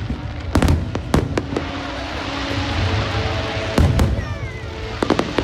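Fireworks going off in sharp bangs: a quick cluster in the first second and a half, a single one near four seconds and a close pair near the end, over a steady background din.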